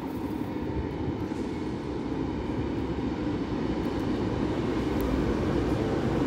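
Train running on the line, a steady rumble that grows gradually louder.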